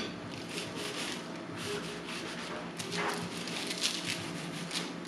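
Long knife cutting through a baked, caramelized sheet of puff pastry for mille-feuille: a run of crisp crackles and crunches as the flaky layers break.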